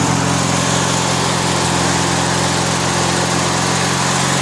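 Craftsman LT1000 riding lawn mower engine running steadily and smoothly, in good running order.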